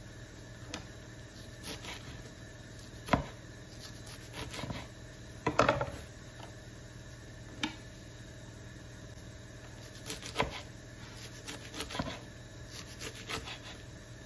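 Kitchen knife chopping bunched pumpkin leaves (ugu) on a plastic cutting board. The blade knocks on the board at irregular intervals, with a sharp strike about three seconds in and a cluster about halfway, then comes down more often near the end.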